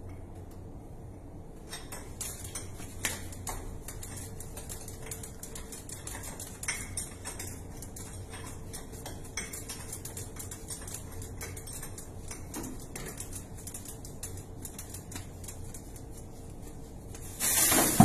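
A wrench and metal fittings on an anhydrous ammonia line clicking and tapping irregularly while the line is being broken open, over a steady low hum. Near the end, a loud burst of noise lasting about a second.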